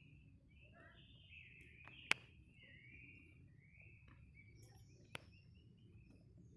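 Faint bird chirps and calls, repeated short notes throughout, over a low steady background hiss. A sharp click about two seconds in is the loudest sound, with a softer click about five seconds in.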